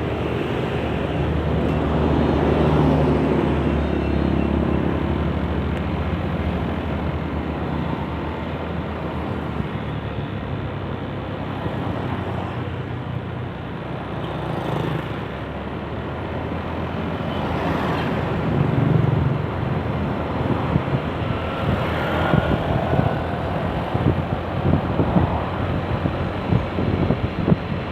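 Road traffic on a highway: cars, motorcycles and trucks passing, their engines swelling and fading, with strong wind buffeting the microphone in low thumps through the second half.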